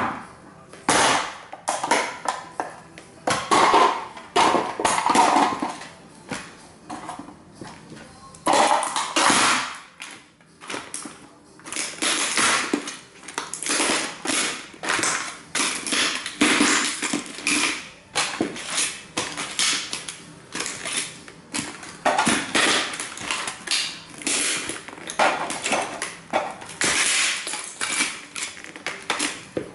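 Cowboy boots stomping on model train houses and treading the broken pieces, crunching and cracking them underfoot in irregular bursts.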